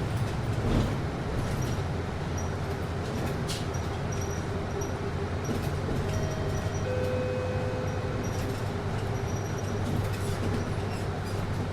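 Steady low hum and airy rush of a city bus's air conditioning, heard inside the passenger cabin, with a few faint light clicks.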